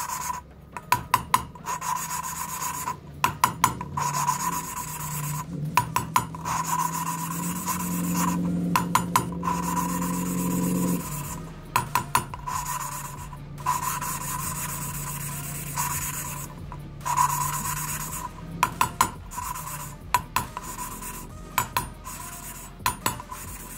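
Motorcycle intake valve being lapped onto its seat with valve-grinding paste, spun back and forth by hand on a lapping stick. It makes a gritty rasping in quick strokes, broken by several short pauses.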